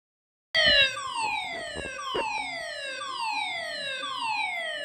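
Building fire-alarm evacuation signal: a loud falling tone that sweeps down over about a second and repeats about once a second, starting about half a second in. The pattern is the standard German evacuation tone (DIN 33404-3) used by voice alarm systems ahead of a spoken evacuation announcement.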